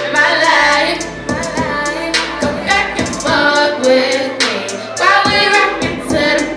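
Song with a woman singing a melodic line over a beat, with steady bass notes and regular drum hits.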